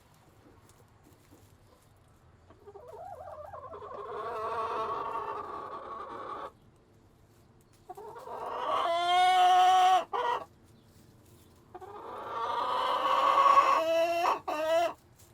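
Rooster crowing in a chicken coop: three long calls, the first quieter and drawn out, the second and third louder, each ending in short broken notes.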